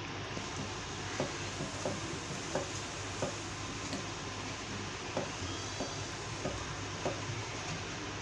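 Wooden spoon stirring milk and sugar in a metal pot, knocking against the pot about every two-thirds of a second, over a steady hiss and low hum.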